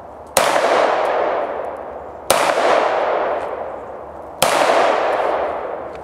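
Beretta semi-automatic pistol fired three times, slow and evenly spaced about two seconds apart, each shot followed by a long fading echo.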